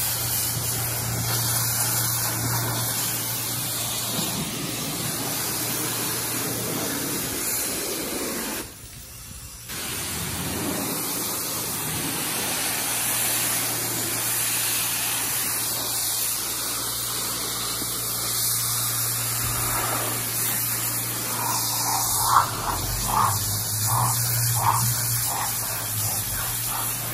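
Pressure washer jet blasting a jet ski's fiberglass hull: a steady loud hiss of spray over a low hum. It cuts out for about a second around nine seconds in, then resumes. Near the end a few short, sharp pulses stand out over the spray.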